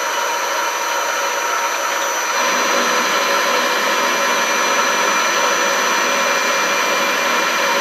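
Harrison M250 metal lathe running steadily with the spindle turning, while a threading tool cuts a thread into a steel knob. A rougher layer of noise joins about two and a half seconds in.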